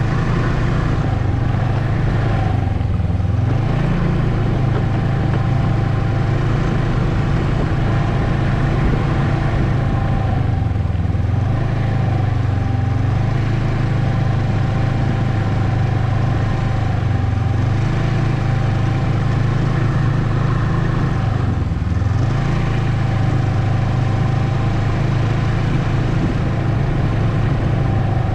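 Ski-Doo Expedition SE snowmobile running steadily along a trail, a low engine drone with a steady whine above it. The note dips briefly three or four times as the throttle eases off and comes back on.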